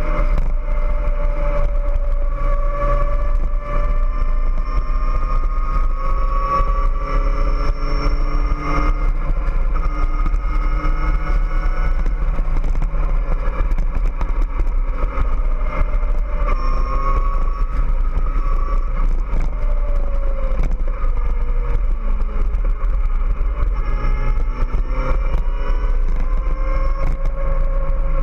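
Kawasaki ZX-14R's 1441 cc inline-four engine running at road speed, its pitch slowly climbing, dipping about two-thirds of the way through, then rising again. A steady low wind rumble and scattered light clicks run under it.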